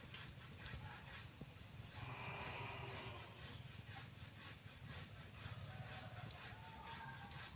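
Quiet rural outdoor ambience: short high bird chirps repeating irregularly over a steady low rumble.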